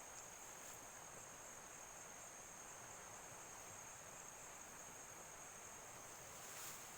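Crickets chirring in one steady high-pitched band over faint background hiss, swelling slightly near the end.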